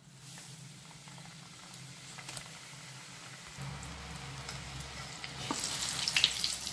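Fish rolls deep-frying in hot oil in a pot, sizzling steadily with small crackles; the sizzle grows louder and busier about five seconds in.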